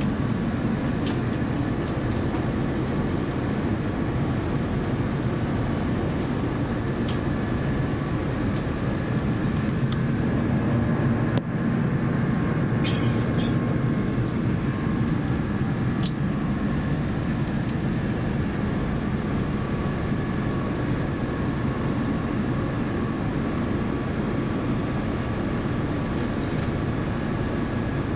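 Steady cabin noise inside an Airbus A350-900 in flight: the low roar of its Rolls-Royce Trent XWB engines and the airflow over the fuselage, with a faint steady whine above it and a few small clicks from the cabin fittings.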